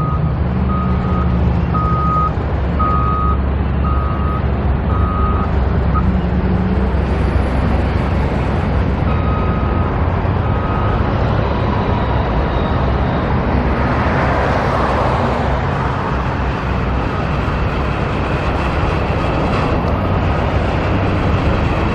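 A construction vehicle's reversing alarm beeping at an even pace, a bit more than once a second, over the steady low rumble of its engine; the beeping stops about five seconds in and comes back briefly around ten seconds in.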